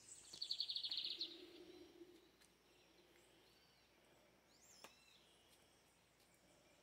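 A bird gives a short, rapid, high-pitched trill lasting about a second, then near silence, with one faint click about five seconds in.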